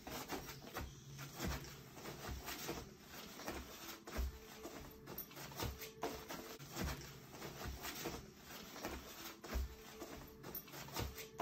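A young boxer dog pawing at, nosing and circling on a fabric dog bed: irregular rustling and scuffing of the cloth with soft thumps of its paws.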